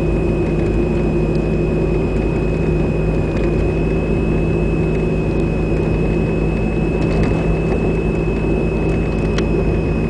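Chevrolet Cavalier driving at about 30 mph, heard from inside the cabin: steady engine and road hum with a thin, steady high-pitched whine over it that drops away at the very end.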